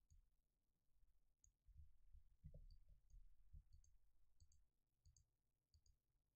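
Near silence with faint computer mouse clicks scattered through it, several in quick pairs.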